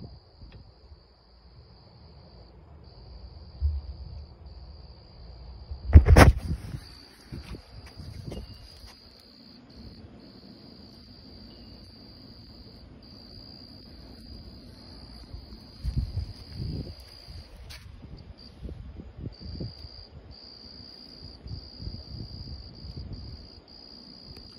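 Insects, most likely crickets, trilling steadily at a high pitch, broken by short gaps. A loud thump comes about six seconds in, with a few softer knocks later.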